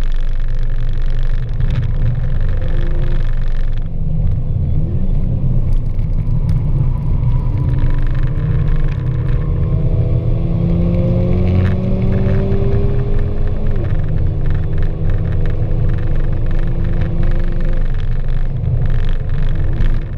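Mercedes-AMG A45's turbocharged 2.0-litre four-cylinder engine heard from inside the cabin while being driven hard on track, a deep rumble of engine and road noise. The engine note climbs steadily in pitch, then drops sharply about two-thirds of the way through as it shifts up, and climbs again.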